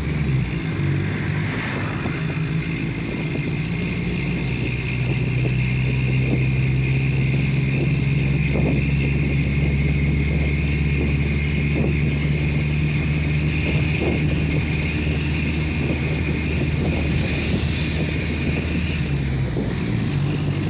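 Mercedes-Benz OF-1418 bus's diesel engine running steadily through its exhaust, with a constant high whine over the low engine note.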